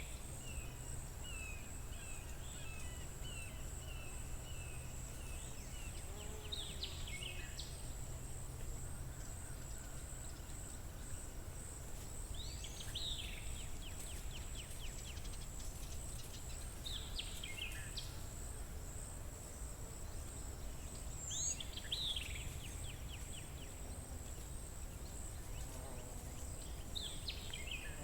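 A songbird singing the same short phrase about every four to five seconds: a quick downward-sweeping note followed by a brief trill. Underneath are a low steady rumble and a faint, steady, high pulsing tone.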